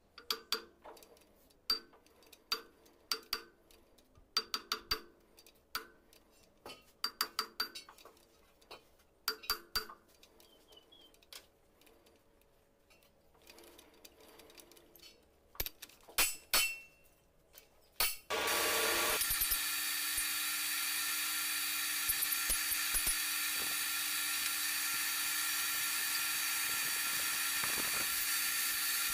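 Sharp metallic taps and clinks in small groups as the welded crusher shaft is knocked true in the lathe's four-jaw chuck against a dial indicator. About 18 seconds in, the manual lathe starts suddenly and runs steadily and louder, turning the shaft while the tool cuts down the weld build-up.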